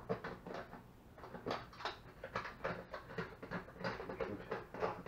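Irregular light knocks, clicks and rustling of things being handled, as of a plastic box and its lid being moved about.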